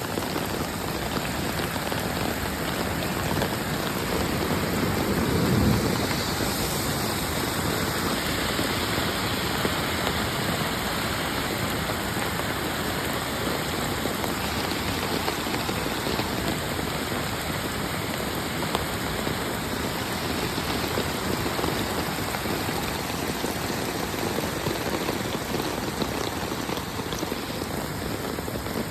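Heavy rain pouring down in a steady, even hiss, with a brief louder, deeper swell about five seconds in.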